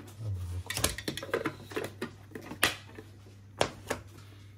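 Scattered clicks and knocks of hard parts being handled and set down while a coffee machine is set up, with five or so sharp ones spread through, over a low steady hum.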